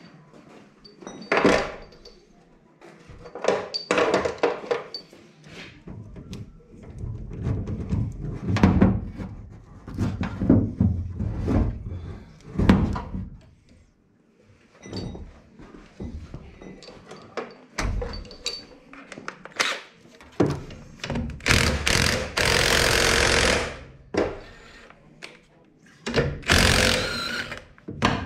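Hand tools clanking and knocking on the metal parts of a Yağmur Yet 510 gearbox as its clutch shaft is taken out, in irregular strikes, with a steady noise lasting a couple of seconds past the middle and a shorter one near the end.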